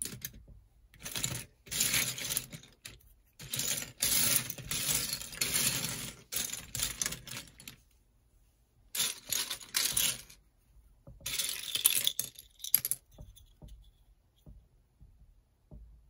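LEGO pieces clattering and clicking against each other as they are stirred or tipped, in several bursts of rattling, then a few scattered single clicks near the end.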